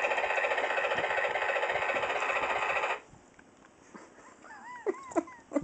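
Electronic sound effect from a toy ride-on fire engine's small speaker: a loud, rapidly pulsing buzzing-ringing tone for about three seconds that cuts off abruptly. Near the end come a few short rising-and-falling whines and sharp clicks.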